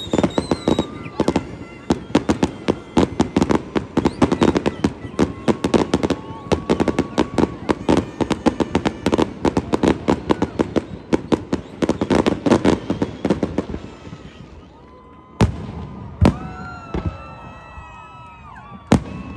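Aerial fireworks display: a dense, rapid barrage of crackling bursts and bangs that thins out about fourteen seconds in, followed by a few single loud booms spaced a second or more apart.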